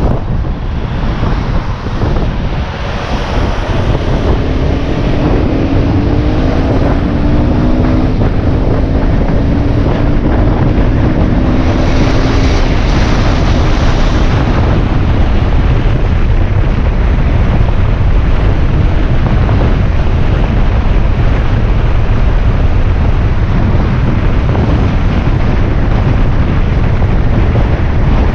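Wind rushing over the microphone of a moving motorbike, with the bike's engine running underneath and climbing in revs as it pulls away, from about four to twelve seconds in.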